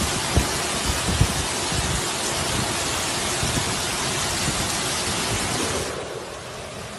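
Heavy rain and floodwater rushing through a street: a steady, loud hiss with a few low thumps in the first second or so. About six seconds in it drops quieter and duller as the phone moves indoors.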